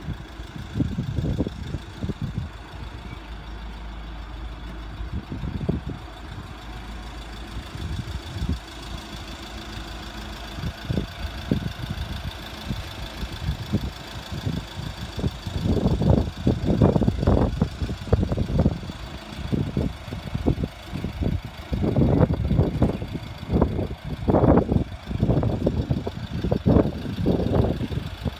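A vehicle engine idling steadily, with irregular low rumbles that grow more frequent and louder from about halfway through.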